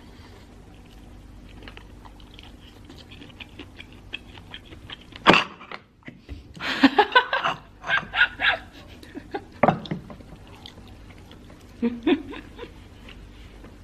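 Close-up chewing and small mouth clicks while eating sticky rice, broken about five seconds in by a run of loud short bursts lasting several seconds, with two more near the end.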